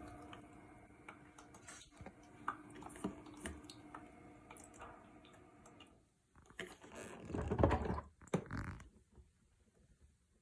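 A Levoit humidifier running with a steady low hum but producing no mist; after about six seconds the hum gives way to a few seconds of plastic handling noise, rubbing and knocks with a couple of sharp clicks, as the unit is handled and checked.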